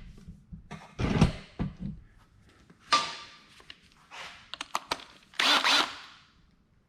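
Clatter and knocks of metal tools being handled, with a few short bursts from a power drill, as a socket is fitted and a self-drilling screw is tried.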